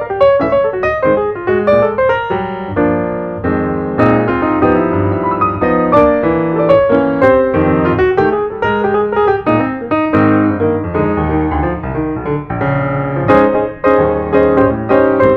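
Background piano music, with a flowing melody over chords.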